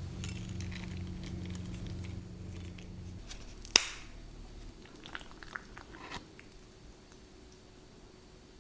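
Close-miked chewing of food in a mukbang, with one sharp click a little before halfway and a few fainter clicks after, then quieter toward the end.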